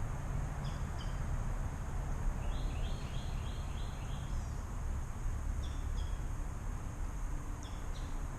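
Birds calling over a steady low wind rumble on the microphone: short two-note chirps a few times, and a quick run of about seven notes a couple of seconds in.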